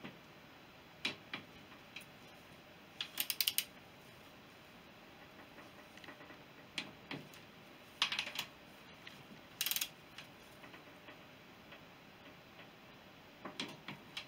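Ratcheting torque wrench clicking in short bursts every few seconds as the Honda CB350's 8 mm crankcase bolts are taken down in stages to about 15 newton metres, with quiet between the bursts.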